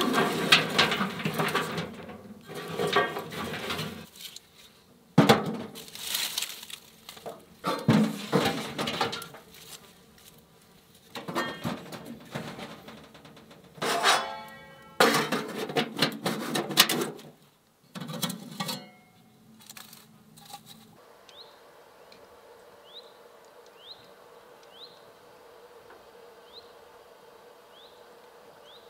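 Dry twigs and grass crackling and rustling as they are crushed and stuffed into a small box-shaped camp wood stove, in separate bursts with light metal knocks from the stove. About 21 seconds in this gives way to quiet outdoor background with a faint short chirp repeating about once a second.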